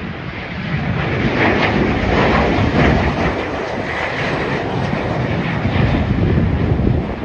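Aircraft passing by: a loud rushing roar that swells about a second in, holds for several seconds, and drops off near the end, with wind on the microphone.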